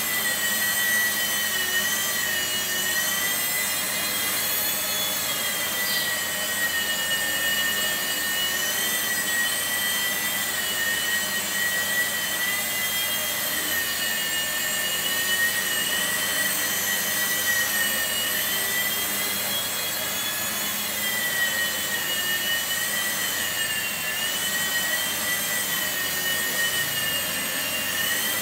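Blade mSR micro RC helicopter hovering: its electric motors and rotors give a steady high whine that drifts gently up and down in pitch as the throttle changes, over the even airy rush of a 55 W standing fan.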